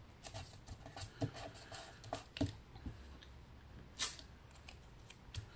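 Paper being handled and pressed flat on a cutting mat: light rustles, scrapes and taps, with one sharper click about four seconds in.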